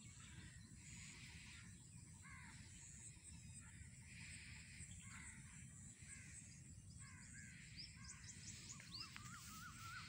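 Faint bird calls in open farmland: a crow cawing several times, a couple of seconds apart, and another bird's rapid trill near the end, over a low steady rumble.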